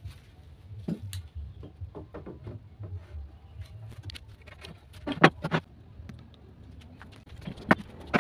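Wooden planks knocking and clattering against a wooden bench frame as a loose board is handled and fitted, with a cluster of three louder knocks just past halfway and another near the end, over a low steady rumble.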